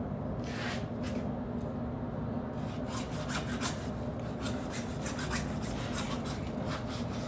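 Hacksaw cutting through a white plastic glass-block spacer at an angle, rasping back and forth. A few strokes come at the start, then a quick steady run of about three to four strokes a second from a third of the way in.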